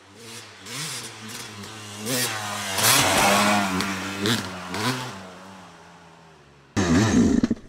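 Yamaha YZ250X single-cylinder two-stroke dirt bike engine revving up and down as the bike comes down the trail, hits the jump and passes close by about three seconds in, then fading away. Near the end a sudden louder, different sound cuts in.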